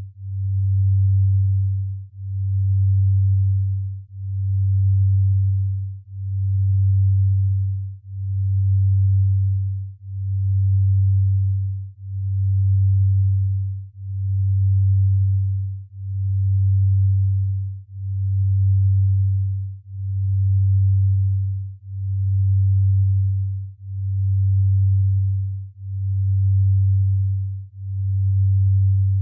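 Binaural-beat sleep tone: a low, pure tone near 100 Hz that swells and dips evenly about once every two seconds, a slow delta-range beat.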